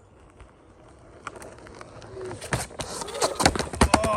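Onewheel XR board clattering and scraping in a quick run of knocks that grows thicker and louder after about a second, a sound that is bad for the board.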